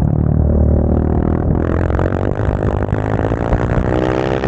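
Motorcycle engine running steadily, then from about a second and a half in revving up as the bike accelerates, its pitch climbing smoothly, before dropping abruptly at the very end.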